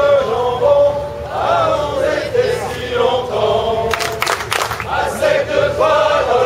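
A group of men's voices chanting together in long, drawn-out calls, with a cluster of short, sharp noises about four seconds in.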